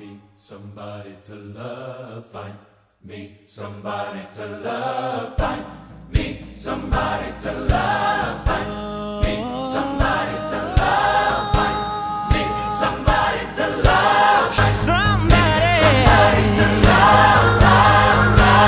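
Background music: a song opens softly with layered, choir-like singing. A beat and bass come in about five seconds in, and the arrangement grows fuller and louder at about fifteen seconds.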